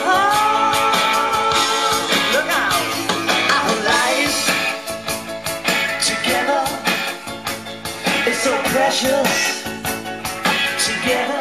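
A rock song playing: guitar lines over a steady drum beat, with some singing.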